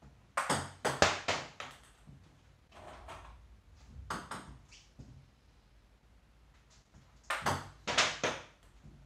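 Table tennis serves: a celluloid-type ping pong ball clicking off the paddle and bouncing on the table, in quick runs of sharp ticks. The loudest runs are about a second in and near the end, with fainter taps between them.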